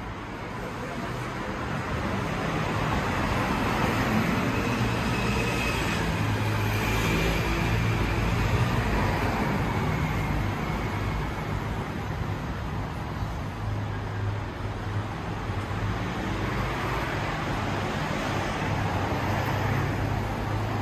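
Street traffic on a rain-wet road: vehicles passing with a noisy hiss over a steady low engine hum, swelling about two seconds in and loudest in the middle.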